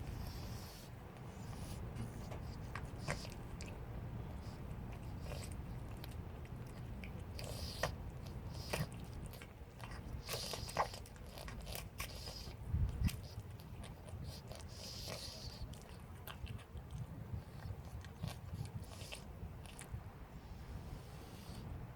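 Calico stray cat chewing, a scattered run of small sharp crunches and clicks over a steady low rumble.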